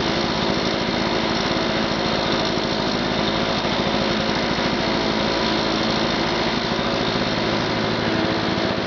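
Lawn-Boy two-stroke lawn mower engine running steadily after a cold start, with a fast, even firing rhythm.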